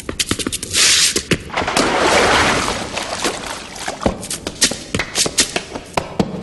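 Hard-soled dance shoes tapping and clicking rapidly on a wet street, with a couple of longer scraping slides about a second in and around two seconds in.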